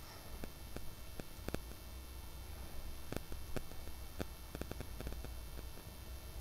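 Boiled eggs shallow-frying in hot oil in an aluminium kadai: scattered small crackles and pops of spitting oil over a steady low hum.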